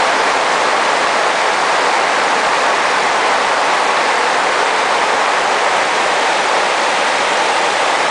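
River rapids: whitewater rushing over a shallow rocky stretch, a loud, steady, unbroken roar of water.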